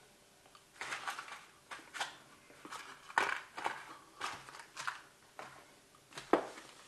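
Plastic packaging rustling and crinkling as it is handled, in irregular bursts, starting about a second in.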